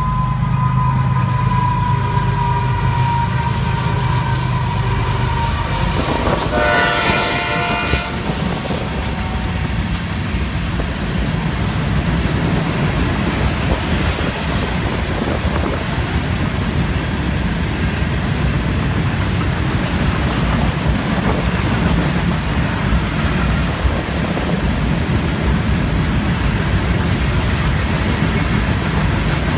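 Florida East Coast freight train's locomotives passing with the horn sounding, ending in a loud chord-like blast about six to eight seconds in. After that comes the steady rumble and clatter of loaded hopper cars rolling by on the rails.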